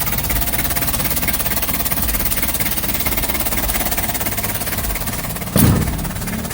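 Nissan Urvan diesel engine idling with a steady, rapid clatter, freshly started on the first crank after a clogged fuel filter and water separator were replaced. A single short thump comes about five and a half seconds in.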